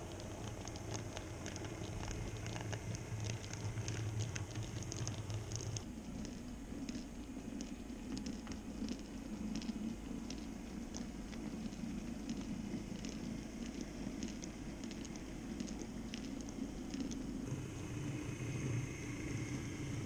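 N-scale Minitrix V 160 model diesel locomotive and freight wagons running along the track, with a rapid irregular clicking of wheels on rail and a low motor hum. The hum's pitch changes about six seconds in and again near the end.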